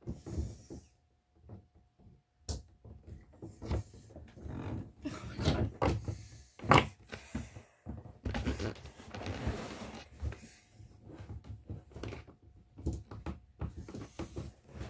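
Close handling noise: an irregular string of knocks and bumps with rustling as things are moved about by hand, the sharpest knock about seven seconds in.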